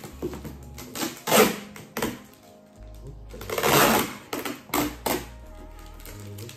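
Cardboard shipping box being opened and handled: rustling and scraping of cardboard and paper in irregular bursts, a sharp one about a second and a half in and a longer one around four seconds in, over background music.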